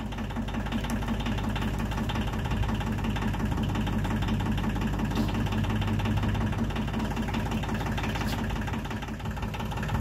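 Compact tractor engine idling steadily with an even, pulsing beat.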